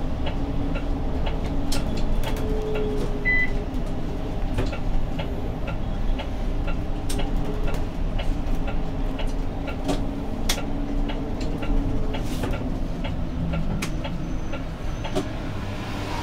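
Interior ride noise of a Zhongtong LCK6113SHEVG city bus on the move: a steady low rumble from the drivetrain and road, with frequent small clicks and rattles from the cabin. A brief high beep sounds about three seconds in.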